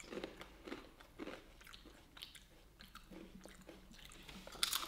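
Faint chewing of crunchy food, raw yellow bell pepper and paprika-flavoured crisps, with a soft crunch about twice a second and a sharper crunch near the end.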